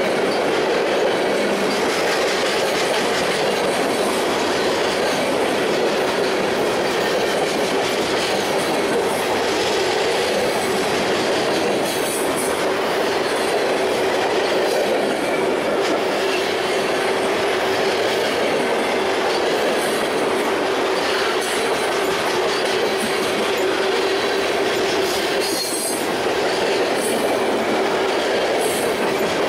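Freight cars rolling past on the mainline: a steady rumble and clatter of steel wheels on rail, with a steady whining tone running under it. A couple of brief, sharper clanks come about twelve seconds in and again near the end.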